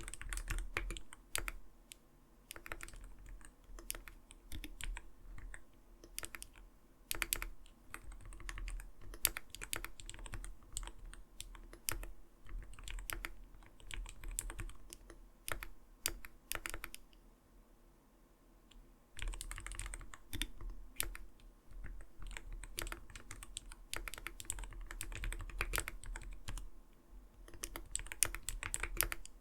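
Typing on an Arbiter Studio Polar 65 mechanical gaming keyboard: quick runs of keystrokes with a light, not-too-thin "koto-koto" clack. The typing pauses for about two seconds a little past halfway, then picks up again.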